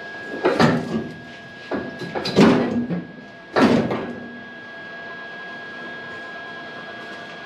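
Three loud clunks and scrapes of heavy metal in the first four seconds as a rear axle is worked out from under a pickup truck, then a quieter stretch with a faint steady whine.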